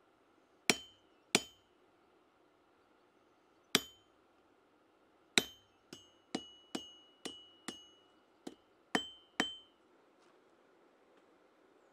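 Blacksmith's hand hammer striking hot steel on an anvil: about a dozen blows, a few spaced heavy strikes and then a quicker run of lighter ones from about five seconds in, each with a short metallic ring. The blows stop a couple of seconds before the end.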